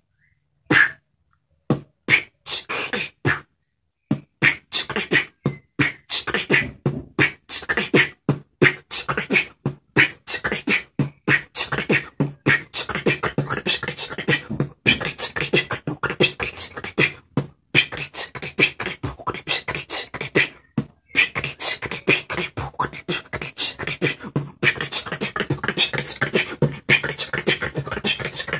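Vocal beatboxing of a drum and bass beat, kick drum and a rapid 'púcala chícala' double snare made with the mouth. It starts slow with a few separate hits, then breaks into a fast, dense run about four seconds in.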